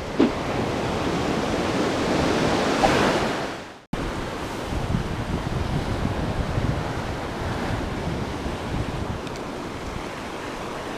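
Sea waves breaking and washing up a shingle beach, the surge swelling to a peak about three seconds in and then fading. After a sudden cut, steady surf breaks against rocks, with wind buffeting the microphone.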